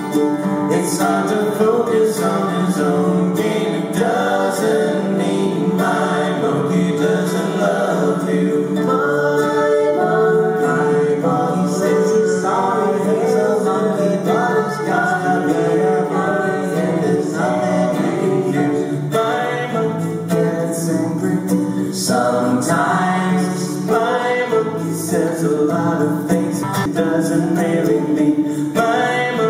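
Live acoustic pop song: several voices singing together in harmony over acoustic guitar and ukulele.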